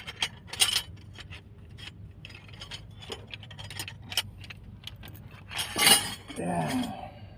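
Metal tools clinking and rattling as they are handled, with a louder clatter about six seconds in, followed by a brief wavering voice-like whine.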